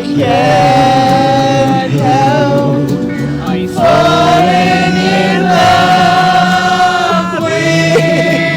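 Music with singing: long, held vocal notes over an accompaniment, with a short break about halfway through.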